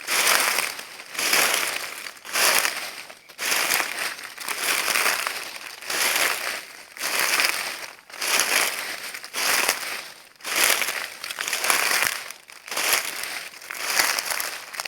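Footsteps crunching through dry leaves at a steady walking pace, about one step a second, each step a crackling crunch.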